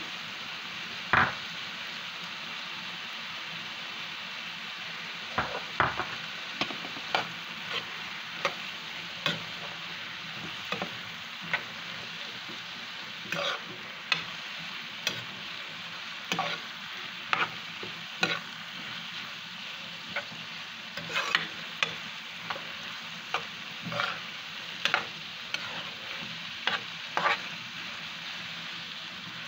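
Diced vegetables sizzling steadily in a granite-coated frying pan while a metal spoon stirs them, clicking and scraping against the pan about once a second.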